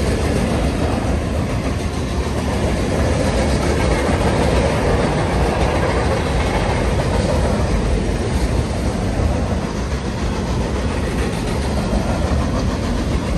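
Freight train of hopper cars rolling across a steel girder railroad trestle: a loud, steady rumble of wheels and cars on the bridge.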